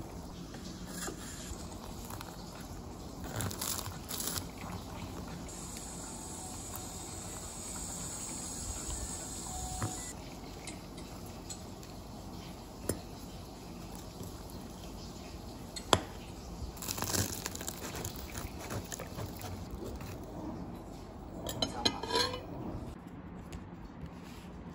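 Metal fork clinking and scraping against a ceramic bowl while cutting into and picking up a flaky pastry, a few sharp separate clinks among quieter scrapes, over a faint steady hum.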